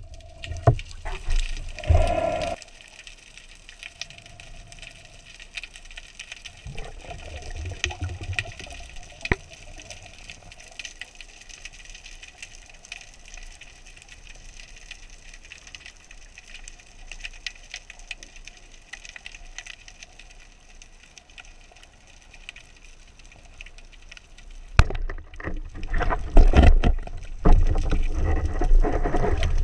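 Underwater sound heard from a diver's camera: loud knocks and water rushing in the first couple of seconds as a speared sea bream is handled on the spear shaft. Then a long quiet stretch of steady hiss with a scatter of faint clicks, and loud rushing and rumbling of moving water again for the last few seconds.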